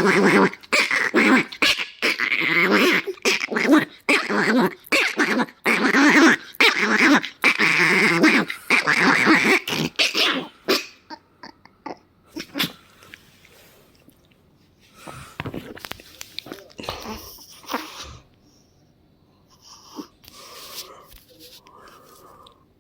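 A dog making a loud, rapid run of noises for about ten seconds, then fainter scattered sounds.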